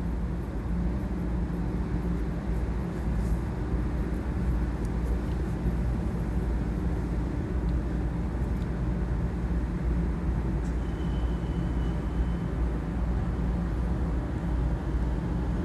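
Steady low machinery rumble with a constant hum running through it, and a faint brief high tone about eleven seconds in.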